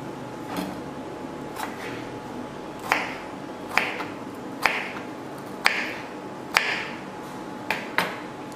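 Kitchen knife chopping rings of bitter melon into small pieces on a plastic cutting board: about nine sharp taps of the blade hitting the board, roughly one a second, each with a short crisp crunch of the gourd's flesh, louder from about three seconds in.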